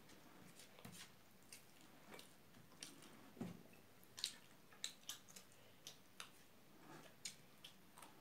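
Faint eating-by-hand sounds: scattered short wet clicks and smacks from fingers working rice and side dishes on the plates and mouths chewing, the loudest about four seconds in.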